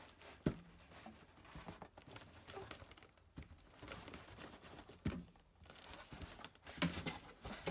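Cardboard inner packaging sliding and scraping out of its outer carton, with plastic wrapping crinkling and rustling. A few sharp knocks come about half a second in, about five seconds in and near the end.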